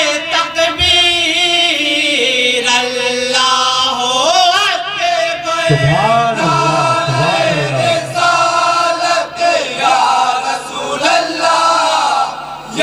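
A group of men chanting a devotional Urdu naat together into microphones, the voices wavering and sliding on long held notes. About halfway through, a deeper voice comes in under the others.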